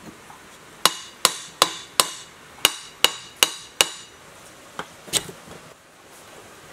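Claw hammer tapping a sewage pump's metal end housing down over the rotor shaft and bearing: eight sharp, ringing metal strikes in two runs of four, about 0.4 s apart, then two lighter knocks near the middle.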